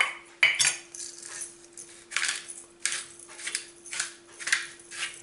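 Black pepper mill being twisted by hand, a series of short gritty grinding rasps, about two a second in the second half, after a few sharper handling clicks at the start.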